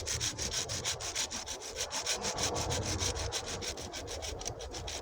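Folding hand saw cutting through wood with quick, even back-and-forth strokes, several a second.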